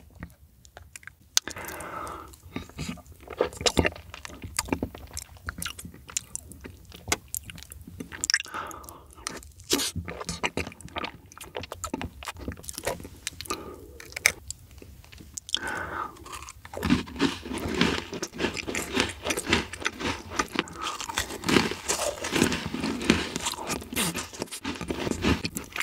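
Close-miked eating of soft matcha desserts: a spoon scooping and scraping into a cake, then wet chewing with many sharp mouth clicks and smacks. The chewing gets busier and louder about two-thirds of the way through.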